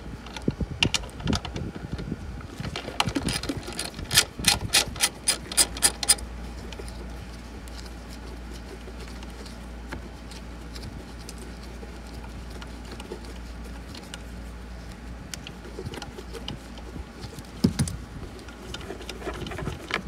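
Socket ratchet clicking as a 10 mm bolt is worked loose. There is a quick run of clicks over the first six seconds, about five a second at their fastest, then faint handling noise and a single knock near the end.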